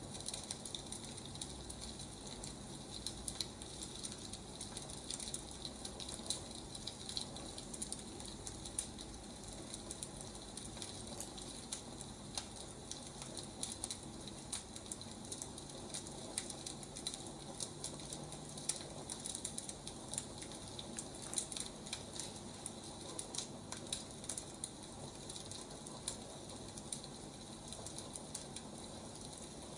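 Wood fire crackling: a steady hiss dotted with many small, irregular pops and snaps.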